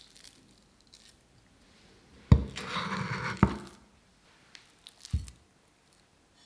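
A cleaver knocks on a wooden cutting board, then scrapes for about a second through minced raw shrimp on the board, ending in a second knock. A couple of softer knocks follow.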